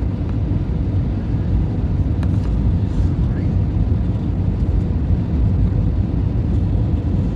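Steady low rumble inside the cabin of an Airbus A321 airliner: engine and airflow noise as heard from a passenger seat, with a couple of faint clicks a few seconds in.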